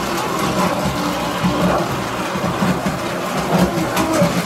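Tinplate toy electric trolley running along three-rail metal track: a steady mechanical running noise from its motor and wheels on the rails.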